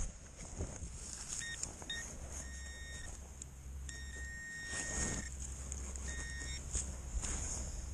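Handheld metal-detecting pinpointer sounding a steady high tone in separate runs as it is probed through freshly dug soil: two short beeps a little over a second in, longer tones around two and four seconds in, and a short one near the end, each marking metal close to its tip. Soil and grass rustle, with small clicks, between the tones.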